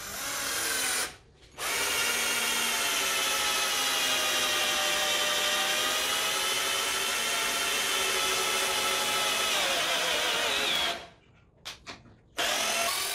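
Wesco WS2502K2 12 V cordless drill/driver, its brushed four-pole motor whining as it drives a hex-head screw through a socket into wood without a pilot hole. It runs briefly, stops, then runs steadily for about nine seconds, its pitch sagging under load in the middle and rising again before it stops; a couple of clicks follow and the motor starts again near the end.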